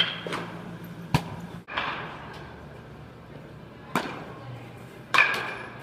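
Sharp leather smacks of baseballs popping into gloves and a catcher's mitt, four in all, the loudest just after five seconds, each echoing briefly in a large indoor practice space.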